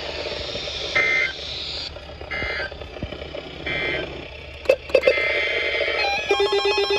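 Weather-radio receiver hiss, then three short digital data beeps about a second and a half apart: the SAME end-of-message bursts that close an emergency alert. A couple of clicks follow, and near the end a fast warbling electronic alert tone starts.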